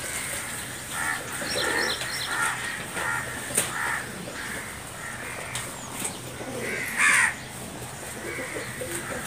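Crows cawing outdoors: a run of harsh caws in the first few seconds, then one louder, falling caw about seven seconds in.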